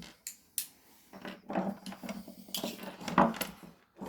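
Parts of an electric fan being taken apart by hand, clicking and clattering against each other and a hard surface, with a sharp knock about three seconds in.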